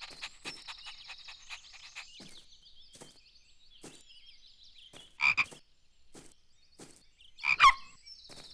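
Cartoon frog croaking: one croak about five seconds in and a double croak near the end, over faint high bird twittering and light ticks.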